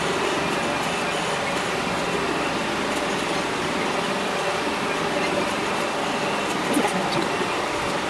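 Electric fan running steadily, blowing the smoke away while a laser engraver burns lettering into a wooden plate.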